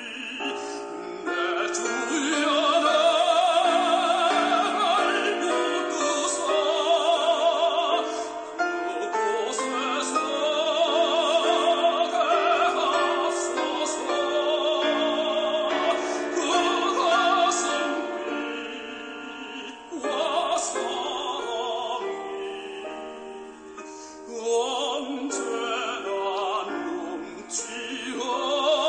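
Operatic singing in a classical style, a voice with wide vibrato carried over a held instrumental accompaniment.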